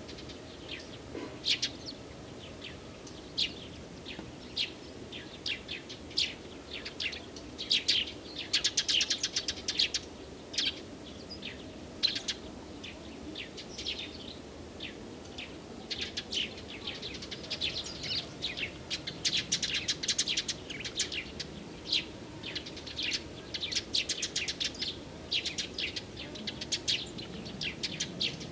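Songbirds chirping and singing: short high chirps and quick trills, one every second or so, busiest about a third of the way in and again about two-thirds in.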